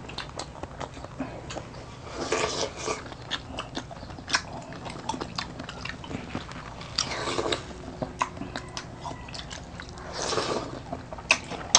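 Close-miked eating sounds: wet chewing and lip smacks with many small mouth clicks as two people eat pork steak and juicy watermelon, with three louder, longer bites or slurps about two, seven and ten seconds in.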